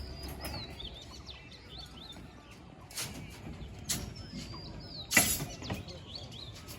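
Small birds chirping in short, quick twittering calls, with a few sharp knocks between them, the loudest about five seconds in.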